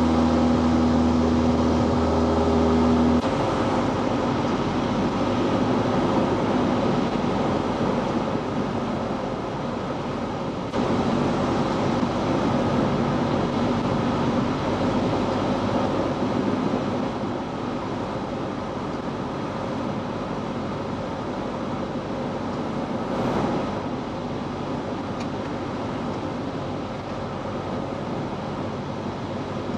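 Cessna 172's engine and propeller heard inside the cabin in flight, a steady drone with rushing air noise. About three seconds in, a set of steady humming tones cuts off abruptly and a rougher, even drone continues, easing slightly in the second half.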